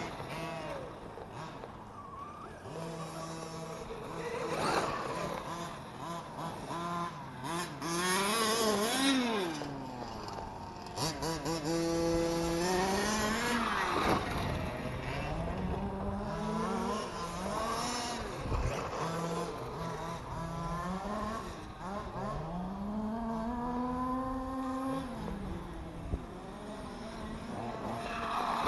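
Large-scale RC trucks running: the 8S electric Losi DBXL-E and gas-powered Losi 5Ts, their motors revving up and down in pitch again and again, at times several at once.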